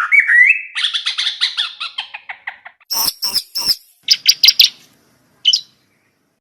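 Trucukan (yellow-vented bulbul) calling: a quick run of chattering notes that slows and fades over about three seconds, then two short clusters of sharper notes and one last note, after which the song stops.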